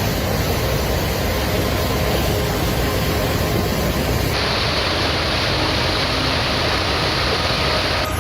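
Steady rushing of floodwater. About four seconds in it changes abruptly to a brighter, hissier rush.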